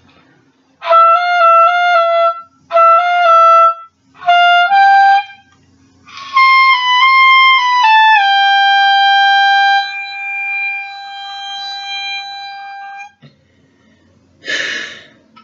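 Solo oboe playing three short bursts of quick notes separated by brief pauses, then a longer phrase that steps down onto a long held note which slowly fades before stopping.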